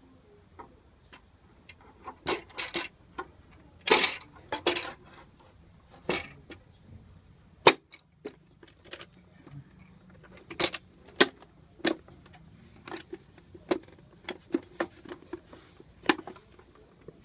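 Irregular clicks and knocks from a paper shredder's parts being handled during a repair, with a single sharp click about halfway through the loudest.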